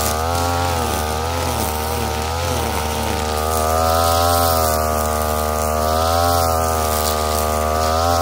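STIHL FR3001 backpack brushcutter's two-stroke engine running at high revs as its nylon trimmer line cuts grass, the engine pitch wavering down and up.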